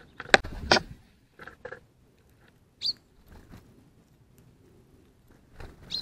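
Small songbirds, greenfinches and tits among them, at a ground feeding spot. A loud rustle comes about half a second in, then scattered faint pecking and scuffling clicks in the seed and leaf litter. A single short, high chirp sounds midway, and another near the end.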